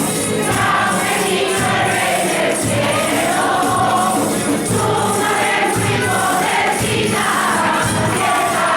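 Group of voices singing a Spanish Christmas carol (villancico) over instrumental accompaniment with a steady jingling percussion beat.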